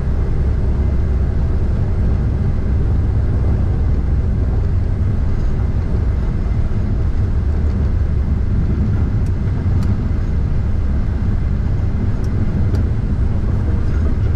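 Steady low rumble on the flight deck of a Gulfstream G650 rolling down the runway on its landing roll: engine, tyre and airflow noise blended together, with a few faint ticks.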